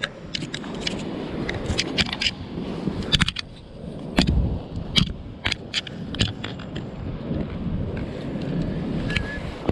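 Low rumbling wind noise buffeting the microphone, with the sea in the background, broken by a string of sharp clicks and crackles.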